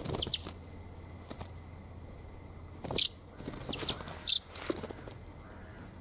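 A small songbird caught in a mist net giving two short, shrill, high-pitched calls, the first about three seconds in and the second just over a second later, with fainter squeaks around them.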